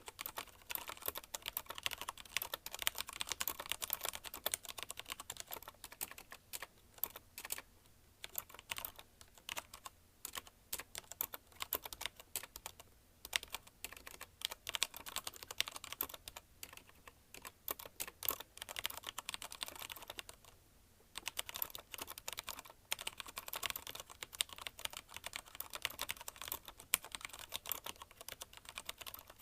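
Fast, continuous typing on a CM Storm Quick Fire TK mechanical keyboard with Cherry MX Red linear switches: a dense, irregular patter of keystrokes. The typing stops briefly about 13 seconds in and again for about a second just past the 20-second mark.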